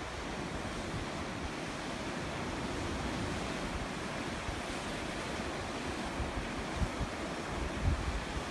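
Sea surf washing steadily on the shore, with a few short low rumbles of wind on the microphone near the end.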